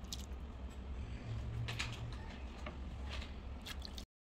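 Metal ladle serving coconut-milk stew into a clay bowl: a few faint clicks and scrapes of the ladle over a low steady hum. The sound cuts off suddenly just before the end.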